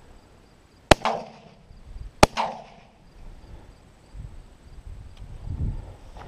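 Side-by-side double-barrel shotgun fired twice, just over a second apart, each shot a sharp bang with a short echoing tail.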